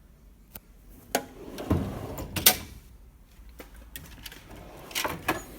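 Metal drawers of a Snap-on KRL roll-cab toolbox sliding on their runners and shutting: a slide about a second in ends in a loud clack, followed by a few sharper knocks near the end.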